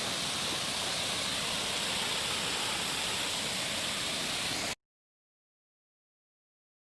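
Waterfall rushing steadily, a continuous hiss of falling water; about two-thirds of the way through, the sound cuts off abruptly to dead silence.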